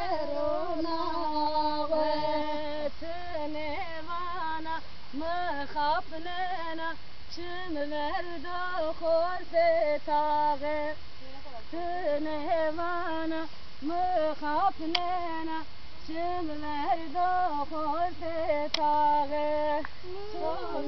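Women singing a folk tune while dancing, phrases of long held notes broken by short pauses, with no instruments heard.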